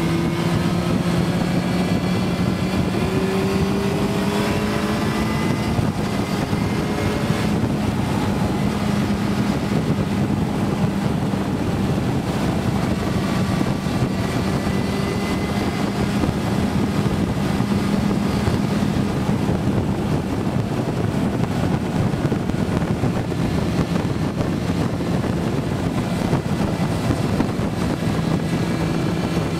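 Motorcycle engine running at a steady cruise, its note rising a little over the first few seconds and then holding, with steady wind rush on the microphone.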